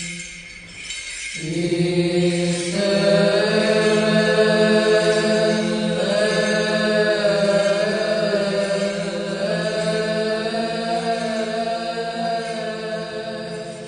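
Slow religious chant of long held sung notes over a steady low drone note, the melody moving to a new pitch every few seconds.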